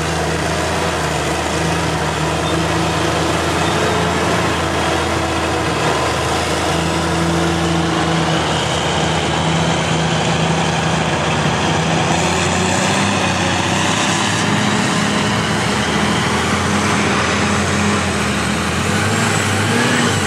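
Diesel engines of classic Caterpillar earthmoving machines running with a steady drone: a motor grader, then a loaded Caterpillar 769 haul truck driving past, its engine note shifting partway through.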